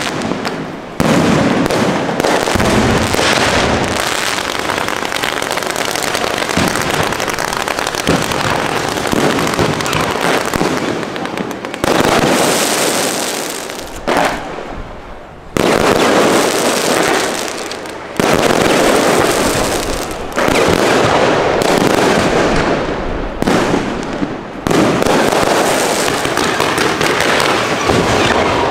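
Aerial fireworks show: a dense, continuous barrage of shells and multi-shot cakes launching and bursting. It comes in waves that start abruptly, about a second in, near the middle and several times toward the end, each dying away a little before the next.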